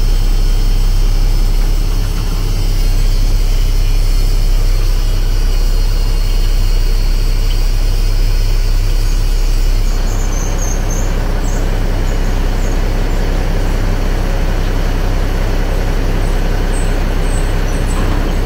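Mack AMI 12.0-litre diesel engine of a heavy dump truck running steadily at idle, heard from inside the cab as a constant low hum. The sound changes slightly and drops a little in level about ten seconds in.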